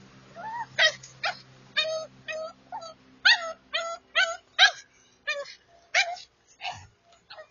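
A dog yipping and whining in a rapid string of short, high-pitched calls, about two or three a second, thinning out near the end.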